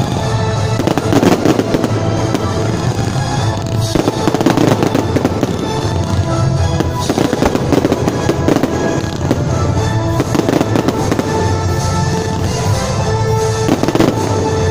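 Fireworks going off in a continuous barrage of bangs and dense crackling, with music playing underneath.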